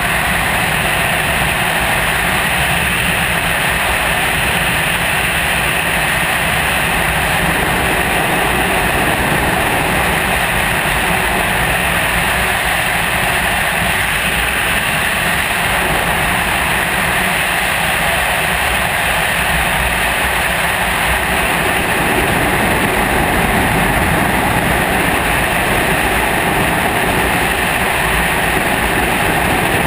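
Freefall wind rushing over a GoPro camera's microphone: a loud, steady rush with no let-up.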